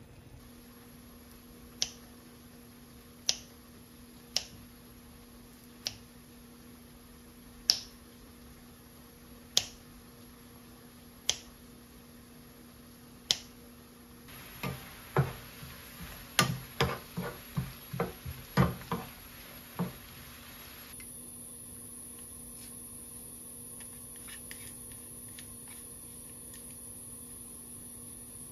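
Sliced onions simmering in sauce in a frying pan, giving single sharp pops about every one and a half seconds. About halfway through, kitchen scissors snip fried chicken in a quick run of cuts lasting several seconds.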